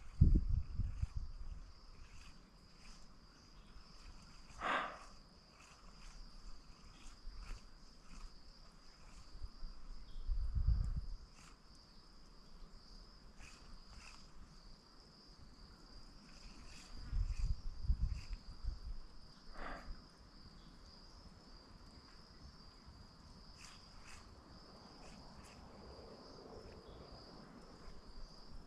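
Steady high-pitched insect buzzing, with a few low rumbles near the start, at about ten seconds and again at about eighteen seconds.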